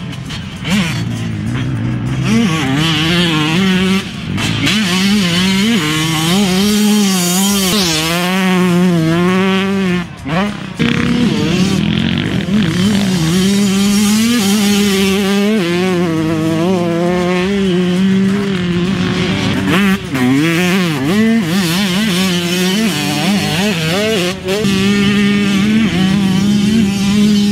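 2019 Yamaha YZ125's 125 cc single-cylinder two-stroke engine ridden hard, revving up and down through the gears. Its pitch rises and falls repeatedly, with a few brief drops where the throttle is shut off.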